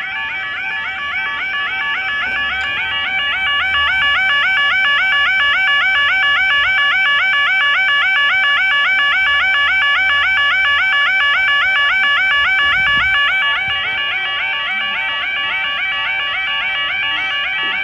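UK level-crossing yodel alarm warbling steadily in quick, repeated rising-and-falling sweeps, the audible warning sounded as the crossing barriers lower. It gets louder about three seconds in and eases a little near the three-quarter mark.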